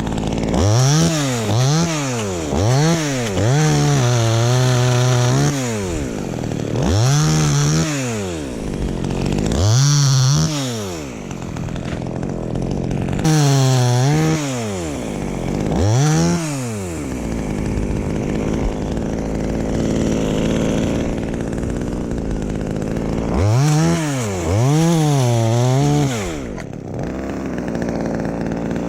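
Chainsaw engine revved in repeated short bursts, about ten times, the pitch climbing and falling each time, sometimes held high for a second or so, with a steady idle between. It sits at idle for about six seconds in the later part before revving up again.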